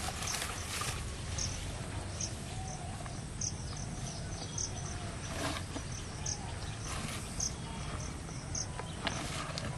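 An insect, cricket-like, chirping in short high-pitched pulses about once a second, over a steady low outdoor rumble with a few faint clicks.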